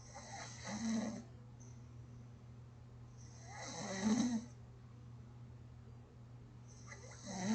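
A person snoring gently and regularly: three snores about three and a half seconds apart, each swelling up to a peak and then breaking off, the last one starting near the end.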